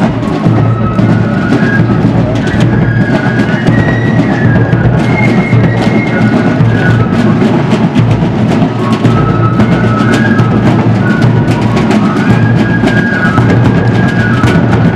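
Military drum corps playing a march while marching: snare drums and a bass drum keep a steady beat, with a high melody line carried over the drumming.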